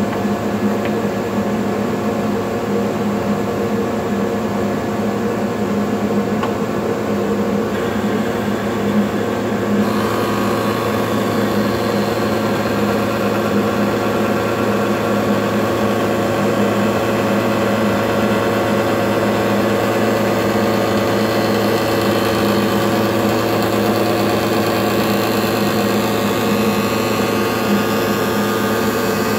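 Spindle shaper with a power feeder running steadily, a constant machine hum made of many steady tones. From about ten seconds in it turns brighter and hissier.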